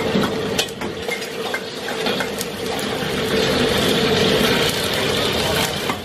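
Metal spatula clinking and scraping against a steel wok over a gas burner, then oil sizzling louder for a couple of seconds from about halfway in, over a steady low hum.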